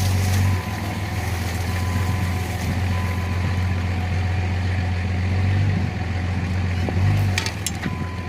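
Vehicle engine running steadily with a low, even hum, and a few sharp clicks near the end.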